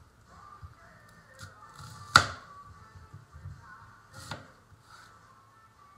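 Chef's knife cutting through a whole onion and striking a wooden cutting board. One sharp, loud knock of the blade hitting the board about two seconds in, and a softer knock a couple of seconds later.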